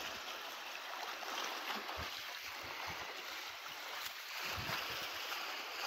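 Small lake waves lapping and washing against a flat rock ledge at the water's edge, a steady wash with a few soft low thumps.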